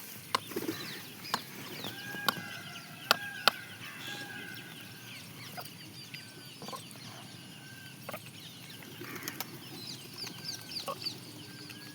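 Peahen clucking and giving short calls, with several sharp taps in the first few seconds and small birds chirping high in the background.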